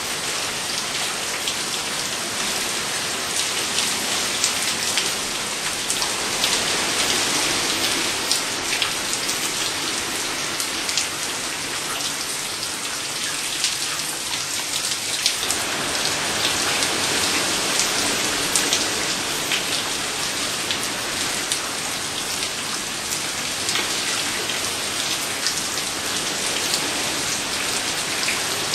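Heavy rain from an approaching hurricane falling steadily, with the patter of drops striking nearby surfaces; the downpour swells and eases a little.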